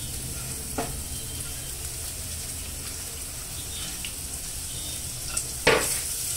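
Chopped onions frying in hot oil in a kadai, a steady sizzle. A few sharp knocks of the metal spatula against the pan come about a second in and twice near the end, the loudest near the end.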